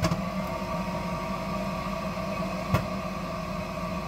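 A steady mechanical hum with several constant tones starts abruptly with a click and holds level, with one sharp click about three-quarters of the way through.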